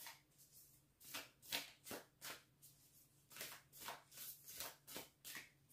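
A deck of cards being shuffled by hand: a faint string of brief soft swishes and flicks, about two or three a second, with a short pause about halfway.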